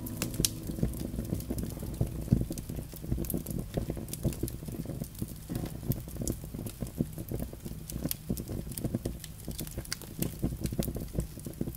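Firecrackers crackling and popping in rapid, irregular succession over a low rumble.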